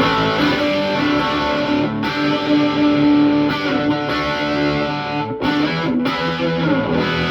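Heavily distorted electric guitar chords and riffs from a Gibson SG through a Marshall SC20C JCM800-reissue tube combo, driven by a Wampler Pantheon overdrive pedal with its gain at noon. The chords ring on with two brief breaks a little past halfway.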